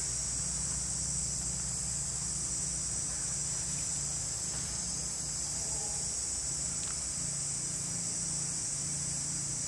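Steady, high-pitched drone of insects, with a low steady rumble underneath.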